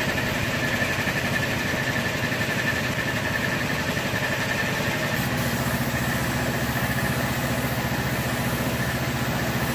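Air compressor running steadily: an even, engine-like motor hum with a faint high whine, unchanging throughout.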